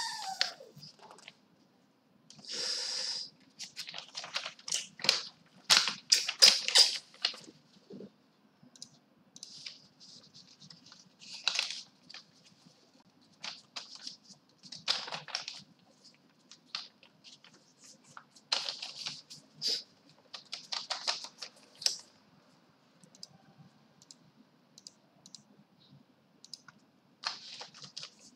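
Computer keyboard typing in irregular bursts of clicking keystrokes with short pauses between them, over a faint low hum.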